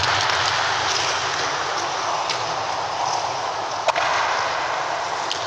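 Roller skate wheels rolling over a hard sports-hall floor: a steady rolling hiss, with a few sharp clacks of skates striking the floor, the loudest about four seconds in.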